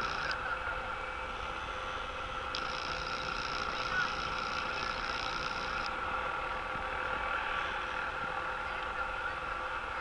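Helicopter hovering: a steady engine and rotor hum with a steady whine, over a rushing background noise.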